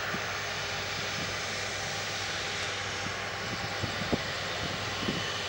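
Airbus A330-300's Rolls-Royce Trent 700 turbofans idling as the airliner taxis, a steady whine with a low hum beneath. A few short knocks come about two-thirds of the way through.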